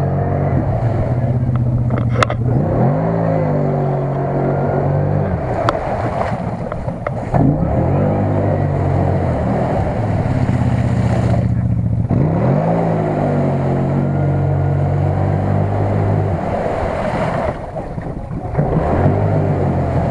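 CFMoto CF-800 side-by-side's engine revving hard and holding high revs as it ploughs through deep mud and water, the revs dropping and climbing again four times. Mud and water splash around it.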